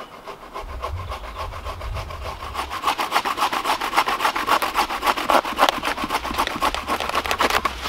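A Gerber Freescape folding bow saw cutting through an oak log thicker than an arm, in quick, even strokes that cut on both the push and the pull. The strokes start softly and get louder about three seconds in as the blade bites deeper.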